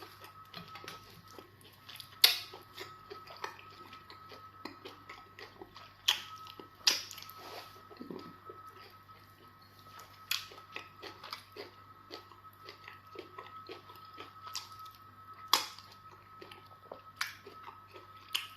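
Close-up chewing and wet mouth smacks from eating amala fufu with slimy okra soup, a run of short clicks with a few louder smacks about 2, 7 and 15 seconds in. A faint steady high-pitched tone hums underneath.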